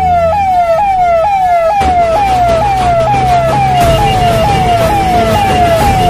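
A siren wailing in a fast repeating pattern, each wail falling in pitch and snapping back up, about two a second. Under it run low steady tones and a regular beat.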